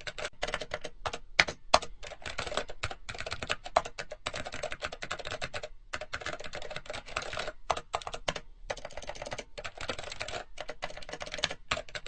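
Rapid typing on a computer keyboard: a dense, continuous run of key clicks, broken by a few short pauses.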